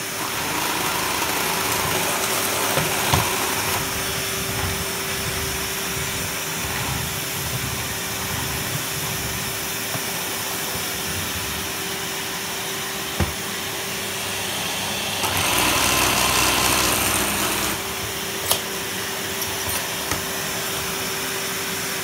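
Numatic Henry Hound HHR200-2 vacuum cleaner running with a steady motor hum while its floor head is worked over a wooden floor. It gets louder for a couple of seconds about fifteen seconds in, and there are two sharp clicks, one a little before and one just after that louder stretch.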